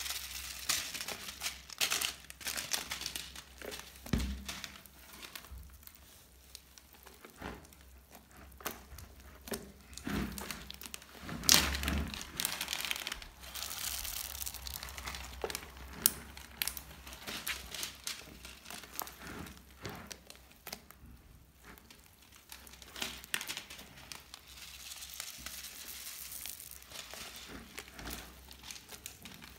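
Slime mixed with small beads being squeezed and kneaded by hand, giving irregular crackling and clicking, with the loudest crackle about twelve seconds in.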